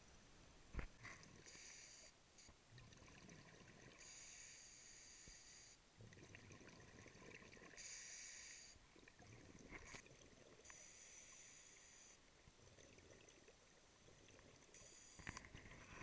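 Faint scuba regulator breathing underwater: a high hiss comes in spells of one to two seconds every few seconds, with lower, rougher noise between them. A sharp click about a second in is the loudest single sound.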